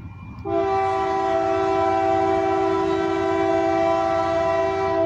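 Multi-chime air horn of a Union Pacific GE C44ACM locomotive sounding one long, steady blast of several notes at once, starting about half a second in.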